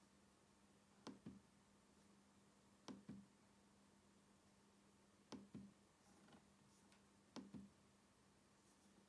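Four pairs of sharp clicks from a laptop trackpad being pressed, about two seconds apart, over a faint steady low hum.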